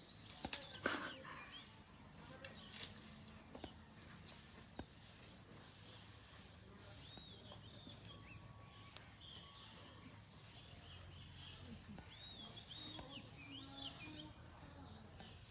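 Quiet outdoor ambience: faint bird chirps scattered throughout over a steady high insect hum, with a couple of sharp knocks about a second in.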